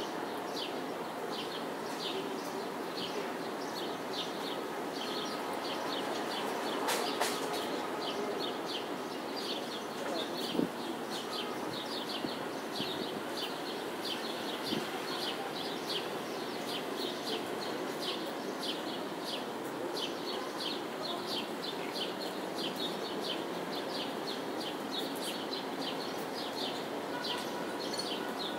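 Small birds chirping rapidly and without pause over a steady hum of distant city noise, with a brief sharp knock about seven seconds in and another about ten and a half seconds in.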